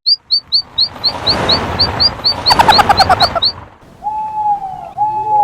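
Cartoon bird sound effects: quick rising chirps, about four a second, over a swelling whoosh, with a fast rattle near the end of the chirping, then two long, slightly falling coo-like tones.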